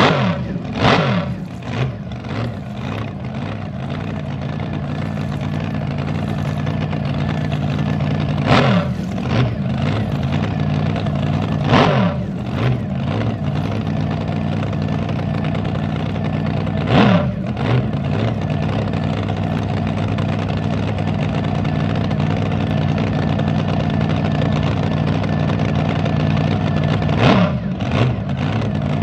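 Several drag boat engines idling loudly at the starting line, a steady lumpy rumble, with short throttle blips about half a dozen times, each rev rising and dropping straight back.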